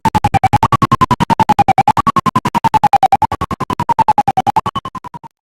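Electronic intro music: a rapidly pulsing tone that slides down in pitch and jumps back up, about four times over, then cuts off abruptly near the end.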